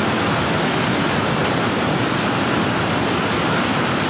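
Muddy floodwater from a flash flood pouring over a dam's concrete weir and churning through the spillway channel: a loud, steady rush of water.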